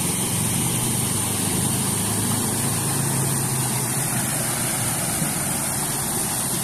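Steady rushing of river water spilling over a small weir, a constant noise with a thin high hiss above it.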